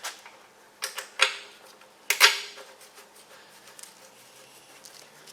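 Hand tools clinking and knocking on metal: a few sharp strikes about one and two seconds in, then only a faint steady hum.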